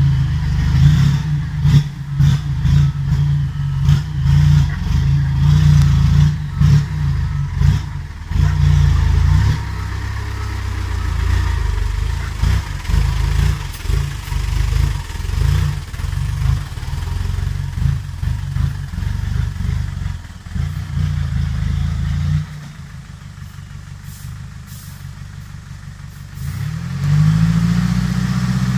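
Six-wheel diesel dump truck's engine running while it manoeuvres on a dirt track, its note swelling and falling with the throttle amid some rattling. Near the end the engine drops to a quieter hum for about four seconds, then revs up again and holds a steady, louder note.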